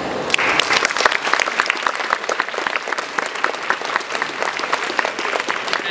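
An audience applauding, breaking out suddenly just after the start, dense at first and thinning toward the end.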